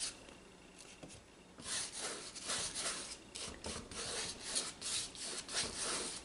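A number 12 flat brush loaded with white acrylic paint being stroked back and forth across a stretched canvas: a run of short, scratchy brushing strokes that starts about a second and a half in.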